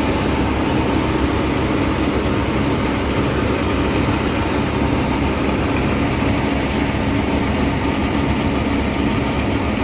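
Tractor engine working under load to drive a grain cart's unloading auger, with wheat pouring into a grain bagger: a loud, steady mechanical drone with a low hum.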